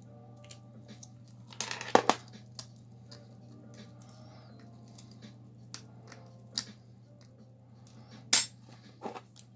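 Sharp clicks and clinks of small metal tools and phone parts being handled and set down on a work surface during a phone teardown. There are about six separate taps, the loudest cluster about two seconds in, over a steady low hum.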